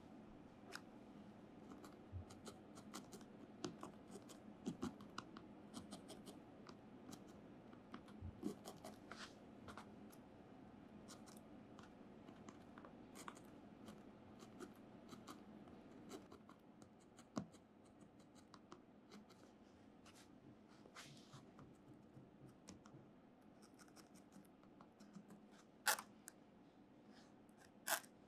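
Faint scratching and small irregular clicks of a needle and fingers working wool fibres on a needle-felted dog, with two sharper clicks near the end.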